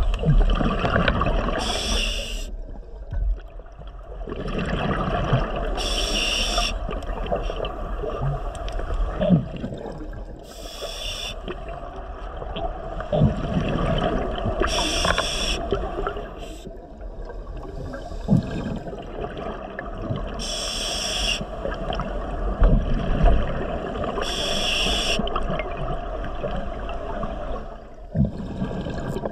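Scuba diver breathing underwater through a regulator: a hissing breath about every four to five seconds, with bubbling and gurgling between them.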